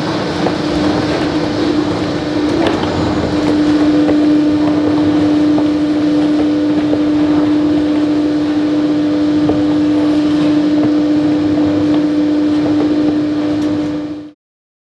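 The PE 1000 TIR portable electric machine running, a steady mechanical din with a strong constant hum and a few light knocks. The sound ends abruptly near the end.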